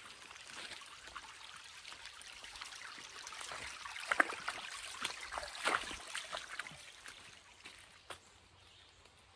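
Creek water trickling, with footsteps on wet ground. The steps are loudest about four and six seconds in.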